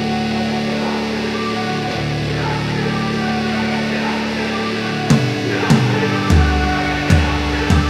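Background rock music: held guitar and synth notes, with drum hits coming in about five seconds in.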